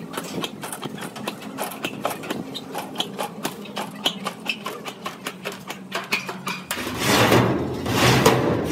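Irregular tapping and knocking, a few sharp strikes a second, over a faint steady hum. About seven seconds in, a much louder low rumble like a motor vehicle's engine swells up twice.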